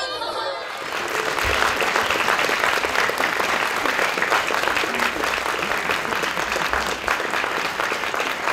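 Audience applauding: dense, steady clapping from a large crowd that starts about a second in.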